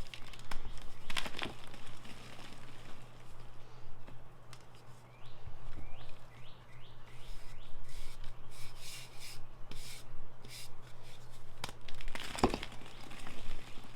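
Blocks of Ader gym chalk being crushed and crumbled by hand: an irregular run of dry crunches and crumbles, with two louder crunches, one early and one near the end.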